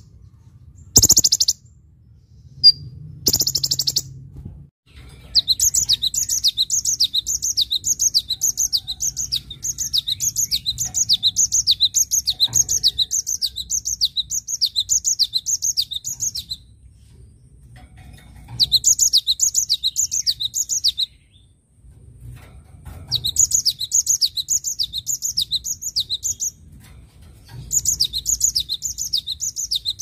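Two short, shrill trills from a Van Hasselt's sunbird (kolibri ninja), then a cinereous tit (gelatik batu) singing. From about five seconds in, the tit gives rapid runs of repeated high notes, each falling in pitch, in four phrases with short pauses between them.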